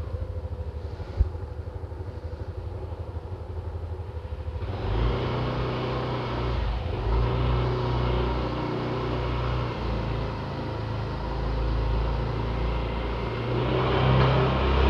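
A motor vehicle's engine running with a rapid low pulsing, with a single click about a second in. From about five seconds in, steadier and louder engine and road noise takes over, as when the vehicle gets moving.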